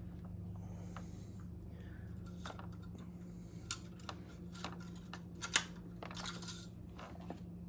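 Scattered light clicks and taps of the engine oil dipstick being handled and slid back into its tube, with one sharper click about five and a half seconds in, over a steady low hum.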